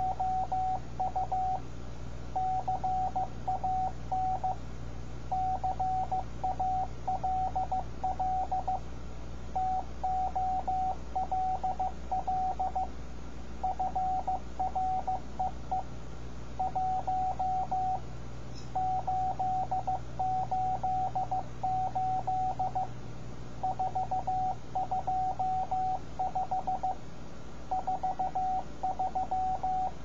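Morse code (CW) sent as a single steady beep tone, keyed in quick dots and dashes. The characters come in groups a couple of seconds long with short pauses between them, over a low steady hum.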